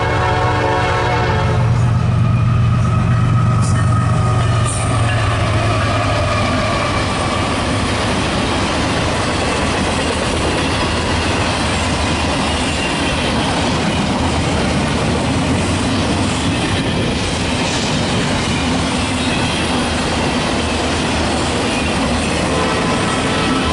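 A train's horn sounds and cuts off about a second in, over the low rumble of the locomotive's engine, which fades within the first few seconds. After that comes the steady rushing and clatter of the train's cars rolling past on the rails.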